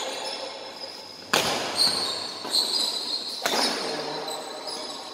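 Badminton rally: sharp racket hits on the shuttlecock, the loudest two about two seconds apart with a short echo after each, and high squeaks of court shoes on the floor in between.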